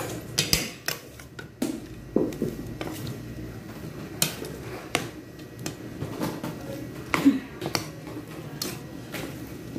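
A metal spoon clinking and scraping against a stainless steel bowl while mixing cornstarch-coated raw shrimp. The clinks come irregularly, and the loudest is about seven seconds in.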